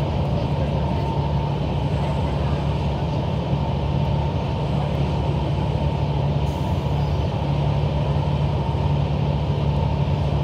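Cabin noise of a diesel railcar running steadily along the line: a constant low engine hum over continuous wheel-and-rail rumble.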